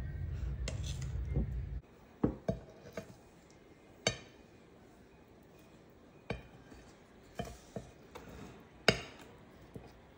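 A metal spatula clinking against a glass cake stand while spreading caramel around a cake: several sharp separate clinks at irregular moments, the loudest near the end. A low steady hum cuts off abruptly about two seconds in.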